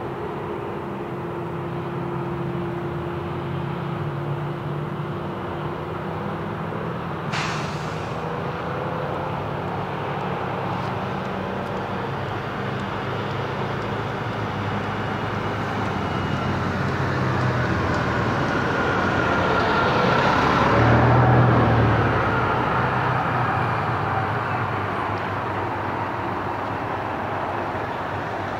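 Steady outdoor engine and traffic hum, with a motor vehicle passing close about three-quarters of the way through: it gets louder and its pitch falls as it goes by. A brief sharp knock about a quarter of the way in.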